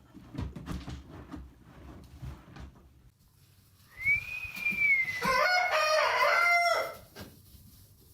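A rooster crows once, about four seconds in, lasting about three seconds: a thin high note first, then a wavering, stuttering main call. Before it there are only faint, low rustling sounds.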